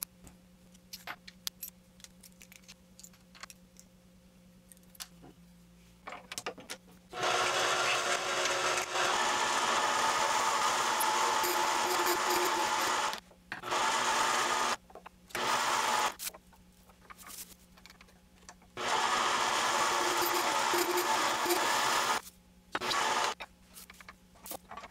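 Mini lathe with a radius tool cutting a curved groove into black acetal (plastic) round stock to form a bending mandrel. It makes a loud, rough cutting noise in several passes, starting about seven seconds in and stopping briefly a few times. Before that there are only small clicks of the tool holder being handled, over the lathe's low steady hum.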